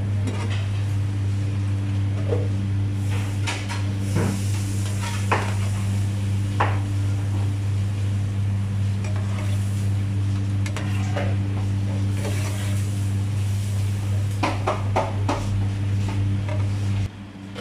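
Gram-flour pakoras sizzling in hot oil in a frying pan, with scattered clinks and scrapes of a metal slotted spatula against the pan, over a steady low hum. The hum cuts off suddenly just before the end.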